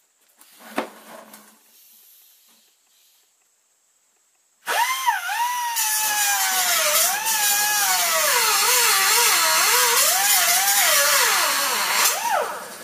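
A cutoff-wheel grinder starts up a third of the way in and cuts into a thin, rusted steel car frame. Its high whine dips and rises as the wheel bites into the metal and eases off, then winds down near the end.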